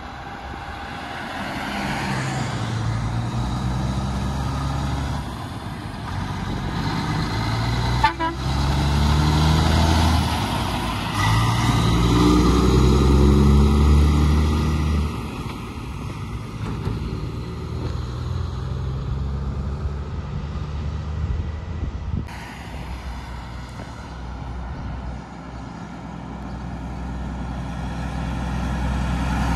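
Diesel engine of a livestock truck and trailer pulling away and accelerating through the gears. Its pitch climbs and drops back at each of several gear changes, and it is loudest as the rig drives close past. Afterwards the engine fades to steadier road noise, which builds again near the end.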